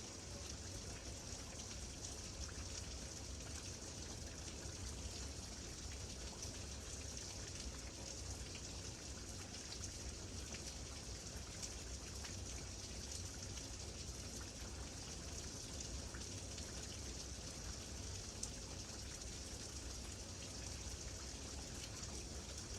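Steady rain falling, a continuous hiss with scattered drops ticking on a surface.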